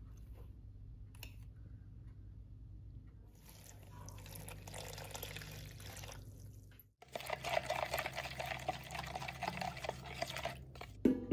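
Milk poured into a plastic mixing bowl over flour, a soft hiss about four seconds in that stops abruptly. Then a spoon stirs and scrapes the wet flour batter against the bowl, louder and crackly.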